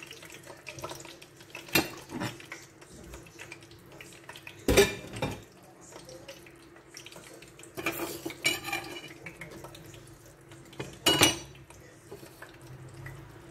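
Kitchen dishes and utensils being handled, giving a handful of separate clinks and clatters, the loudest about five seconds in, over a faint steady hum.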